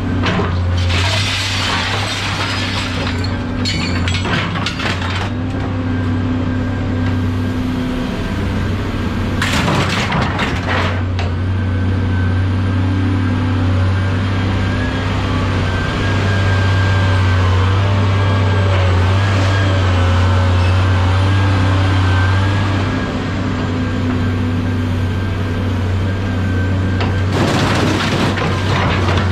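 A heavy engine running steadily with a low hum, and loose scrap metal crashing and clattering three times: about a second in, about ten seconds in, and near the end.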